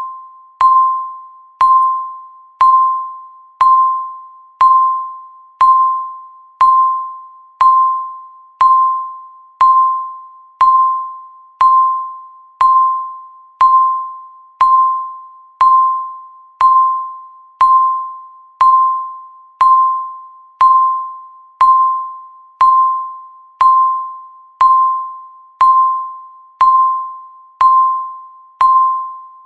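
Countdown timer tick sound effect: a short, clear ping that starts sharply and fades, repeating evenly once every second to mark each passing second of the countdown.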